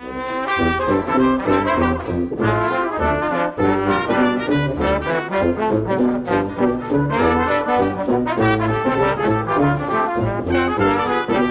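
Background instrumental music led by brass, with a steady pulse of low notes, starting suddenly after silence.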